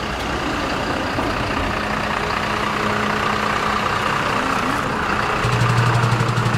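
Street traffic noise with a motor vehicle's engine running close by; a deeper engine hum grows louder about five and a half seconds in.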